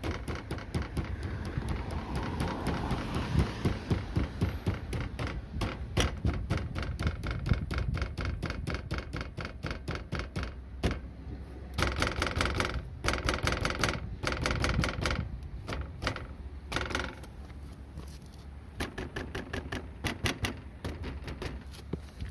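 Rapid, irregular clattering rattle from a loose part on a Daihatsu Move Custom, over a low steady rumble. This is the source of a カタカタ rattle heard in the cabin, with the bumper area as the suspected spot. The clicks come thick and uneven, loudest in a burst past the middle.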